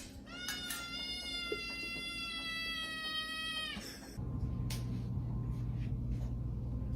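A cat giving one long, drawn-out meow lasting about three seconds, dropping slightly in pitch as it ends. After it stops, a low steady hum runs on.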